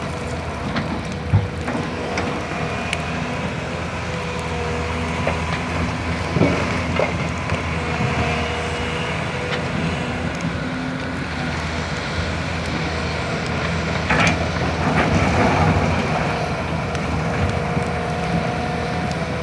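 Heavy diesel mining machinery running steadily: an excavator and trucks loading coal, with a few sharp knocks and a louder stretch about fourteen seconds in.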